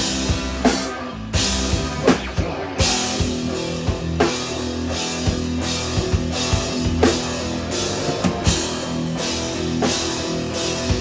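A three-piece instrumental rock band playing live: drum kit with steady, regular hits under sustained guitar and bass.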